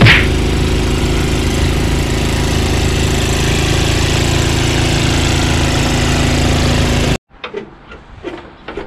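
Two-stage snowblower engine running steadily, with a brief sharp hiss right at the start. About seven seconds in it cuts off suddenly, leaving a few light knocks and clicks.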